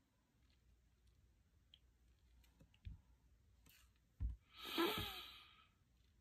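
A woman's breathy sigh of about a second, coming after faint small mouth clicks and two soft low thumps.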